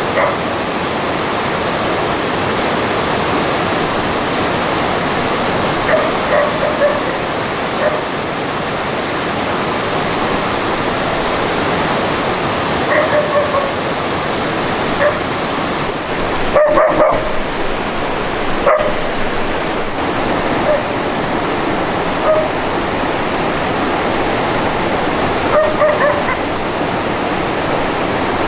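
Steady rush of a mountain stream, with a dog giving short yips and whines over it about six times.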